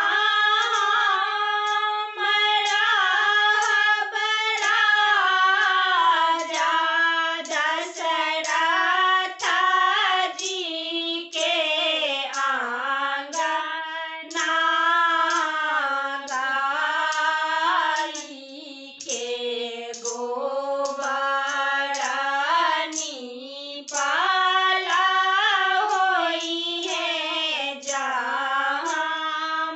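Women's voices singing a Maithili Chhath folk song (a sanjh song for Kharna) together, unaccompanied, in long held phrases with brief breaths between lines.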